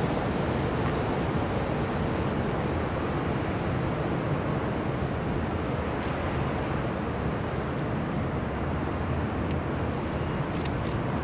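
Steady low rumble and wash of a large bulk carrier under way close by, running evenly throughout.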